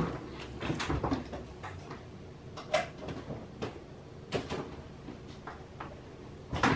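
Scattered light knocks and clicks of someone handling things in a kitchen, with a louder clatter near the end.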